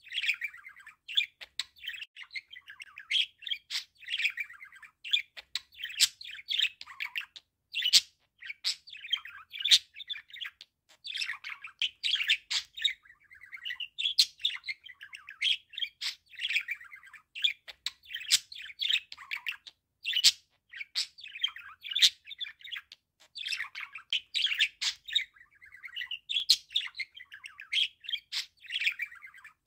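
Male budgerigar warbling: a long, near-continuous chatter of quick chirps, squeaks and clicks, broken by brief pauses.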